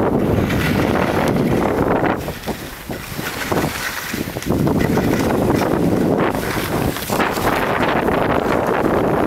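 Wind buffeting the camera microphone, a loud, gusty rush that eases for a couple of seconds about two seconds in, then comes back.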